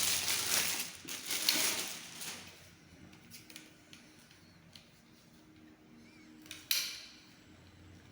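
Handling noise from a vacuum cleaner's extension pipe being worked: rustling for the first two seconds or so, then a quiet stretch with a few light clicks and one sharp knock near seven seconds.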